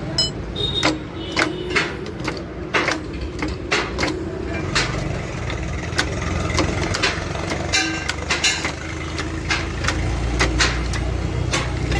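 Irregular sharp knocks and clinks, a dozen or more, over a steady low running hum.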